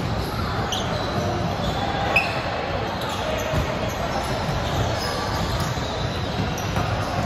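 Echoing din of an indoor volleyball session in a large gym hall: ball thuds and players' voices, with a couple of short sneaker squeaks on the hardwood floor about one and two seconds in.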